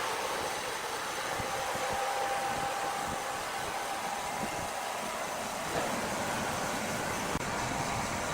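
Steady machinery noise with a faint high whine, a machine running at an even pace.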